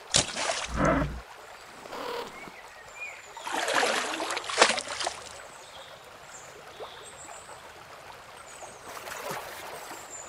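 Water splashing as a paw strikes a shallow stream: a sharp splash right at the start, a longer splashing about four seconds in, and a lighter one near the end, over a soft trickling stream.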